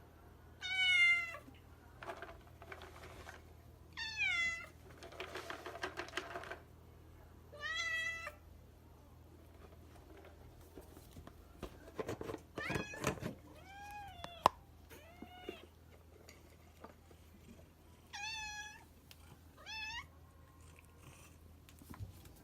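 Domestic cats meowing to beg for treats: about eight separate meows, each about half a second long, a few seconds apart.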